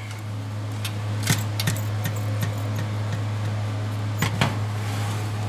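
Electric fan oven's convection fan running with a steady hum and whir while the door is open, with a few sharp clicks and knocks of the metal baking tray being pulled out on the oven rack, twice close together near the end.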